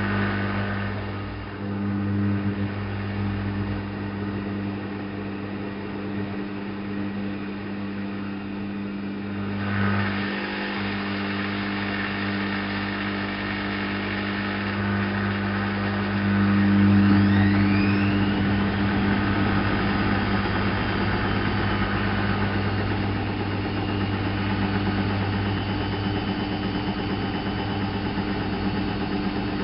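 ALASKA WA8200 E washing machine running, a steady mechanical hum with a faint rising whine about halfway through.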